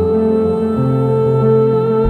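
Soft new-age style background music: sustained held notes over a slowly shifting bass line.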